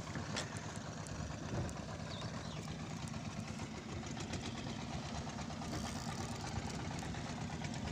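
Small fishing boat's engine running steadily at idle, a low even drone.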